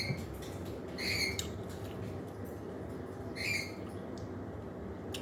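Pet parrot giving three short, high squeaky chirps: one at the start, one about a second in and one about three and a half seconds in.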